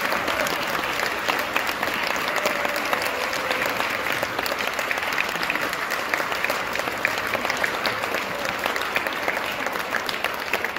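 An audience applauding steadily: many hands clapping at once.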